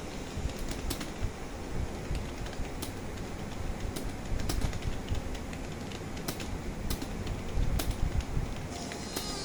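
Typing on a computer keyboard: irregular keystroke clicks at an uneven pace.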